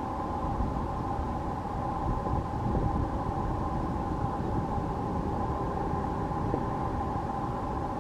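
Jet airliner turbofan engines running steadily: a continuous high whine over a low rumble.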